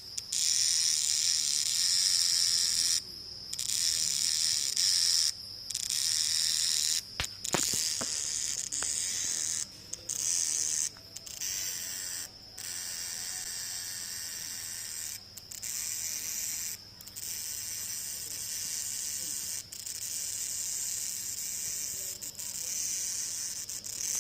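Cicadas buzzing at night: a loud, high-pitched steady drone, broken by short breaks several times.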